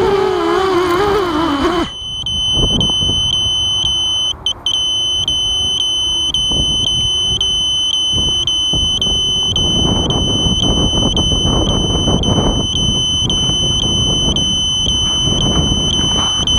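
Small FPV racing quadcopter (Walkera Rodeo) with its motors whining and wavering in pitch, cutting off about two seconds in. Its buzzer then beeps a high pip about twice a second, over wind buffeting the onboard microphone.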